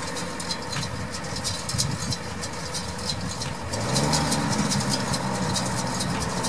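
Diesel engine of a Case IH Maxxum 125 tractor running while it pulls a Case IH RB 344 round baler through hay, with the engine note rising about four seconds in. A fast, irregular clicking rattle of the working machinery runs over it.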